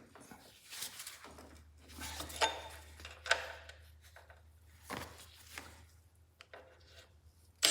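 Scattered light clicks and knocks of metal tools and bolts being handled while lining up the transmission's bracket bolt holes. A low steady hum starts about a second in.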